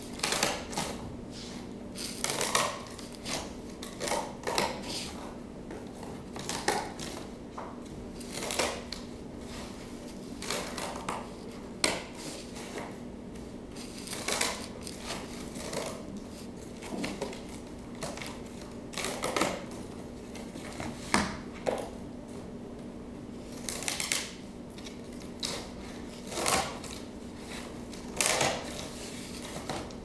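Repeated cutting: short strokes at irregular intervals, about one every second or two, over a steady low hum.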